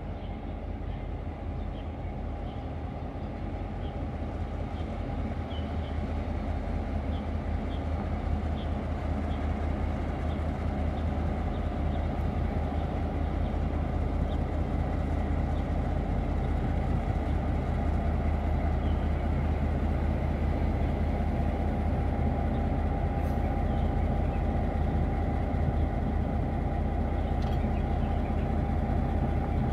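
Diesel shunting locomotive R152's engine running with a steady low drone, growing slowly louder as the locomotive moves closer.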